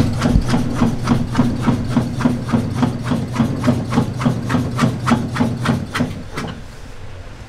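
Sausage-stuffing machine running, pushing sundae filling through a metal nozzle into a pig-intestine casing. It runs with a steady hum and a regular pulsing beat of about three or four pulses a second, and stops about six seconds in.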